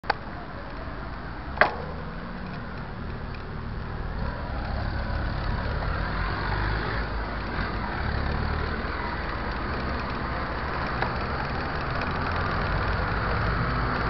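Road traffic on a city avenue: cars running and passing close by, a steady low rumble heard from a bicycle riding beside them. A single sharp click about one and a half seconds in.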